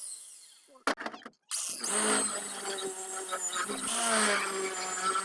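Angle grinder with a flat disc winding down over the first second, then a click, and the grinder starting up again about a second and a half in and running steadily, its pitch wavering.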